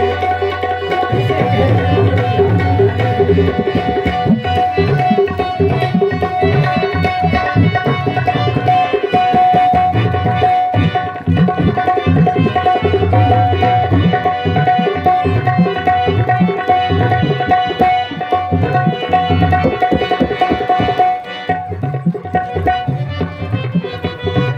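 Tabla playing a brisk rhythm in live stage accompaniment, under a steady held note that drops out about three seconds before the end.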